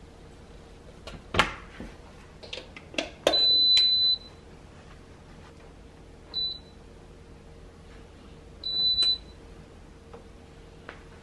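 Jenniferoom Macaron mini rice cooker: its lid clicks shut about a second in, followed by a few light knocks. Then come three electronic beeps from its control panel: a long beep, a short beep as the menu button selects white rice, and a longer beep as the cook button starts the rice cooking.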